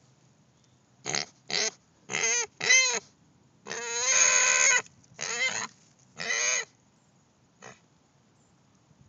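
Black pot-bellied pig squealing in a string of about seven short, high, arching calls, the fifth drawn out to about a second, with a faint short one near the end: begging for more treats.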